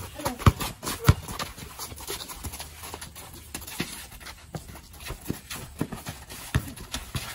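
Basketball game on a court: the ball bouncing with sharp thuds, mixed with players' running footsteps and scattered knocks.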